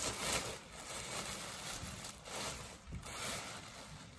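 Thin plastic garment bag rustling and crinkling as it is pulled off a trench coat on a hanger, in several pulls, loudest at the start.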